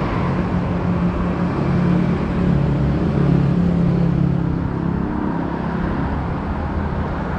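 A motor vehicle engine running steadily at low revs, a low drone over street noise, swelling slightly about two seconds in.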